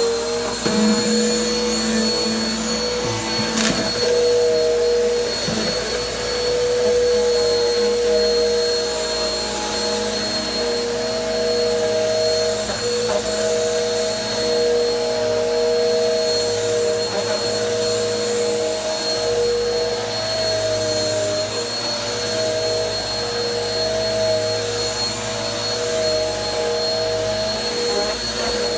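Bissell PowerForce Helix upright bagless vacuum running steadily while pushed over carpet: an even motor drone with a high whine on top. A single sharp click about four seconds in.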